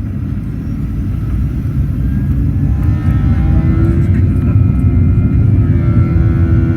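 Boeing 737-800's CFM56-7B jet engines heard inside the cabin as a steady low rumble, growing louder from about two seconds in as a whine comes in over it about three seconds in: the engines spooling up to more thrust.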